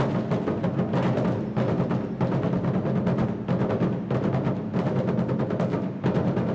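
Japanese taiko drums played as an ensemble in a fast, driving rhythm of dense strikes, with a short break about six seconds in.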